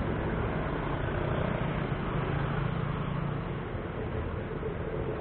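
Street traffic heard while cycling: motorcycle and car engines running close by over a steady road rush.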